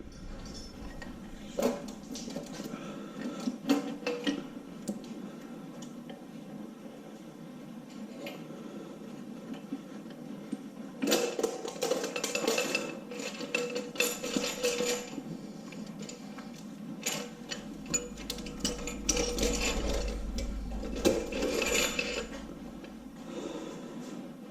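Scattered metallic clinks, knocks and scraping as the driver's-side cylinder head of a 6.0 LQ4 LS V8 is worked off the block. The clatter is busiest in two stretches in the middle and later part, with a low rumble about three-quarters of the way through.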